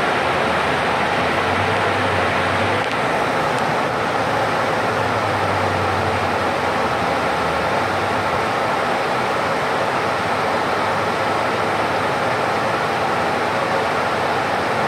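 Cabin noise inside a moving city bus: a steady rush of engine and road noise. A low engine drone in the first half fades away as the bus slows toward a red light.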